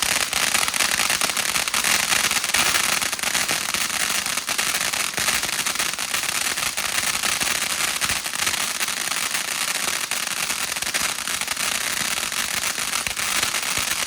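Consumer firework crackling without a break: a dense, rapid stream of small sharp pops that holds at a steady loudness.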